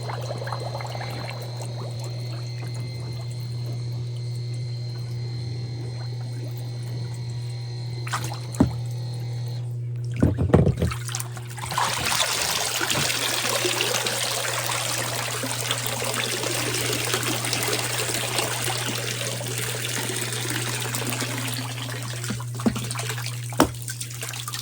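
Cordless handheld pool vacuum running in the water with a steady low motor hum. A few knocks come about ten seconds in, then a loud rush of pouring, splashing water for about ten seconds, the kind made as water runs through and out of the unit.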